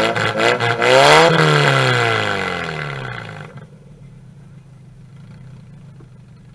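Demolition derby car engine revving in quick blips, then one long rev about a second in that winds down over the next two seconds and settles to a low, steady idle.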